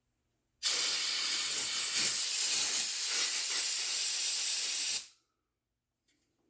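A pressurised jet hissing in one steady blast, cleaning the hydraulic pump's small intake screen. It starts sharply about half a second in and cuts off about five seconds in.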